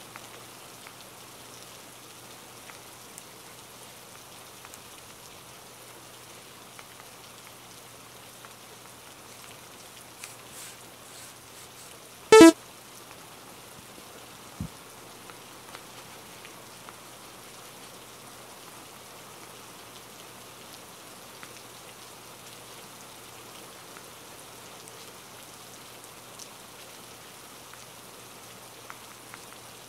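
Steady rain ambience, an even hiss of rain falling. About twelve seconds in, a brief, loud pitched sound cuts through it once.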